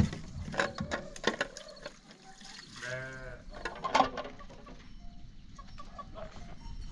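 A single short bleat of farm livestock about three seconds in, amid a few scattered knocks and clatter.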